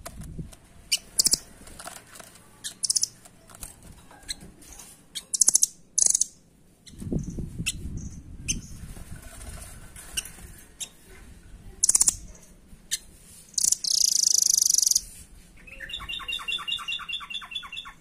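Caged rambatan doraemon songbird calling with short, sharp high chirps scattered throughout. About three-quarters through it gives a dense high-pitched burst, then a fast run of rapid repeated notes near the end. A low rustle comes a little before the middle.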